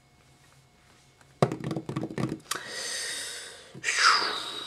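Handling noise: a quick run of knocks and clicks about a second and a half in, then a breathy rushing noise with a falling sweep near the end.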